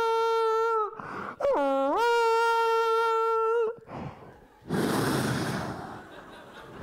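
A man imitating a stadium horn with his voice, cupped hands around a microphone: two long blasts, each swooping up from low and then held steady. Near the end, a burst of audience noise.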